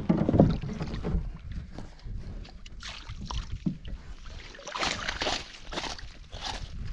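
Water splashing and sloshing around a canoe, with a low knock at the start and a few short swishing splashes in the second half.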